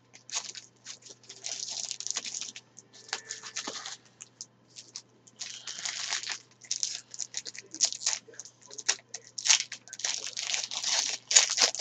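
Trading-card pack wrapper being torn open and crinkled, with the cards inside being handled; an irregular run of crackling and rustling that comes in bursts.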